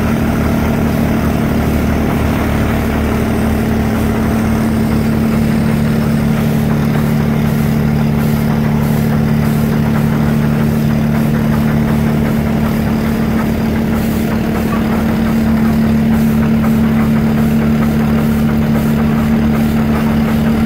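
Heavy engine of a large Industrial Brownhoist crane running steadily with a low, even drone, a little louder for the last few seconds.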